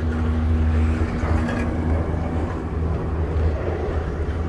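Wind buffeting a phone microphone and a snowboard sliding over icy spring snow, giving a steady low rumble. A humming tone fades out about a second and a half in.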